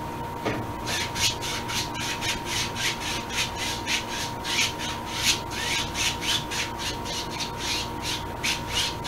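Soft paintbrush being scrubbed back and forth across the painting to blend the paint, in quick, even strokes at about three a second, each a short scratchy swish, starting about a second in.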